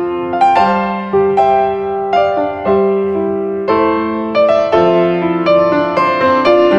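Background piano music: a melody of single struck notes that ring and fade, about two notes a second.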